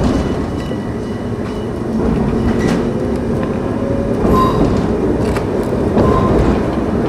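Kumamoto Electric Railway 5000-series 'Aogaeru' electric railcar running along the line, heard from inside the driver's cab: a steady rumble with a few clicks of the wheels passing over rail joints.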